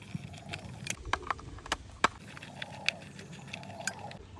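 Small screwdriver tightening screws into a plastic toy car's underside: irregular light clicks and scrapes of the metal tip working in the screw heads and against the plastic.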